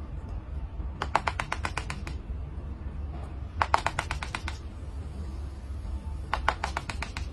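Tuxedo cat chattering: three short runs of rapid clicking chatter, about ten clicks a second, about a second in, in the middle and near the end, over a steady low hum.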